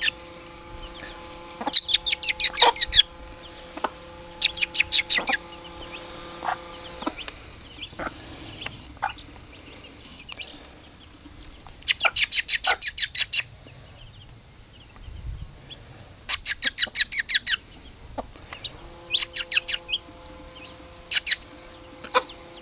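Young chicks peeping in quick runs of high notes, several a second, in groups of a second or two, with a mother hen clucking now and then.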